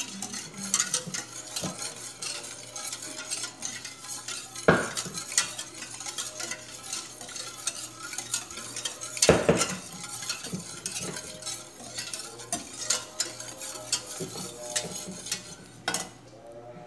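A wire whisk stirring a thick cream, milk and cornflour mixture in a stainless steel pot, its wires ticking and scraping against the metal. It knocks louder against the pot about five and nine seconds in, then stops near the end.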